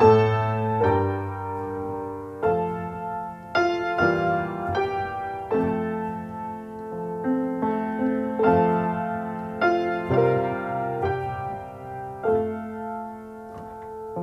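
Slow piano music: chords struck about once a second, each ringing on and fading.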